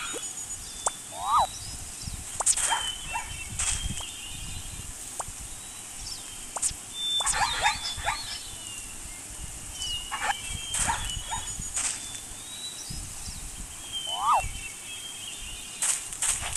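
Scattered short animal calls and chirps, coming in clusters several times, over a faint steady background.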